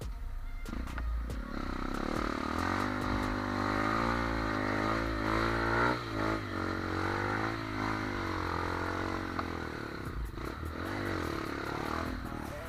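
Trail motorcycle engine revving, its pitch rising and falling repeatedly as the throttle is worked, with some clattering near the end.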